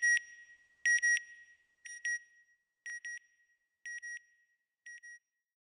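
Electronic beep sound effect: a pair of short high beeps repeated about once a second, six times, growing quieter until it stops near the end.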